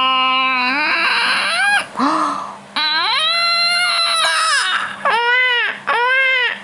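A baby crying: long wails whose pitch climbs and falls, breaking into a run of short, arched cries near the end.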